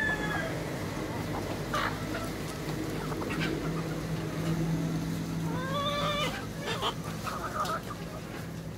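A flock of hens and roosters clucking and calling every second or two, with a few drawn-out calls a little past the middle.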